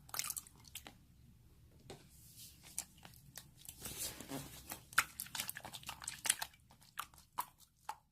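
Slime being squished and pressed by hand, giving an irregular run of sharp wet clicks and pops.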